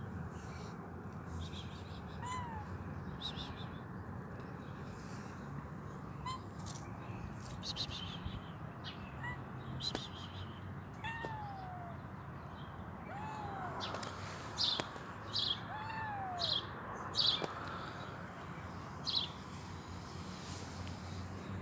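A tabby kitten meowing repeatedly: about six short meows a couple of seconds apart, each falling in pitch. In the second half several short, sharp crackling rustles are the loudest sounds, over a low steady background rumble.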